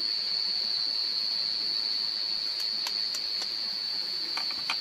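Night insects trilling in a steady high chorus, with a few light clicks around the middle and near the end.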